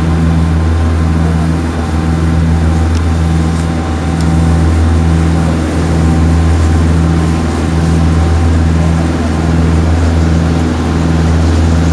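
A boat's engine running under way: a steady low drone with a slow, even throb. Water rushes along the hull.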